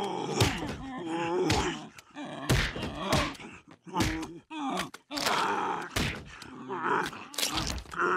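Two male cartoon voices bellowing and groaning in imitation of rival bull walruses, long wavering calls without words, broken by sharp thuds about once a second as their bodies slam together.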